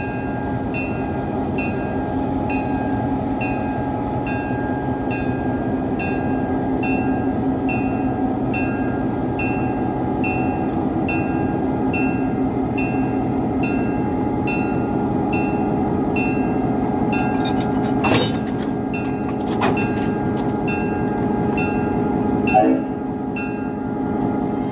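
A train running with a steady engine drone, and a bell striking at an even pace of about twice a second. A few sharp knocks come late on, the loudest shortly before the end.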